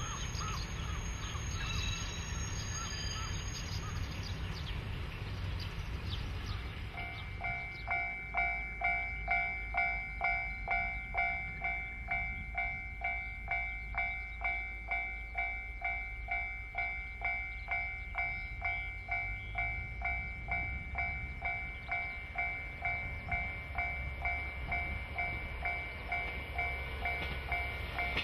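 Railway level-crossing warning bell ringing steadily at about two dings a second, the signal of an approaching train. It starts about seven seconds in, over a low rumble; before that only the low rumble is heard.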